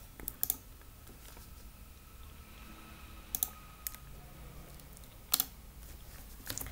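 A handful of short, sharp computer-mouse clicks in small clusters, picked up by a laptop's built-in microphone, with a quiet room between them.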